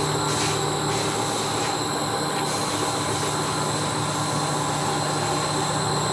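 Overhead crane hoist (motor and gearbox) running steadily during a brake-adjustment test: a continuous mechanical running noise with a low hum and a thin, steady high whine.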